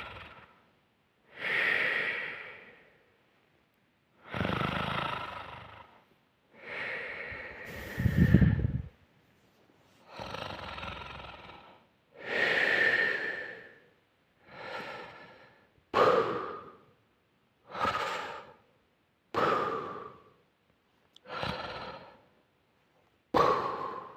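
A person snoring: a series of loud breaths with silence between them, with a deep snort about eight seconds in. In the second half the breaths come shorter and sharper, about one every two seconds.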